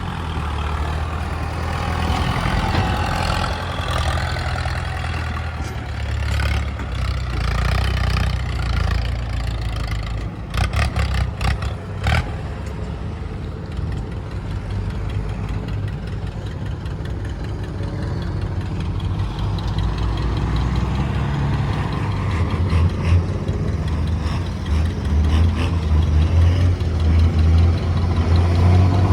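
Heavy machinery's diesel engine running steadily, with a quick run of sharp clanks about ten seconds in, and the engine growing louder near the end.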